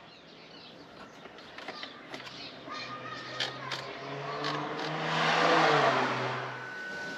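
BMW F80 M3's electric coolant pump starting up and running with a steady hum, with a few clicks and a swell of rushing noise in the second half, as the ignition-on bleed cycle pushes coolant through the system to purge air.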